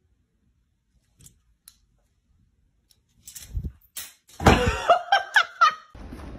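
Near silence, then a thud and a sharp knock as a cat leaps and hits a door. A person's loud voice follows, crying out in short rising bursts.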